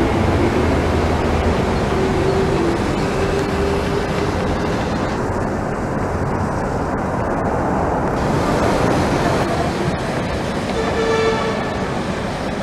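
Kuala Lumpur Monorail trains running on the elevated track over city street traffic: a steady rumble of train and traffic that changes abruptly about five and eight seconds in, with a brief pitched tone about eleven seconds in.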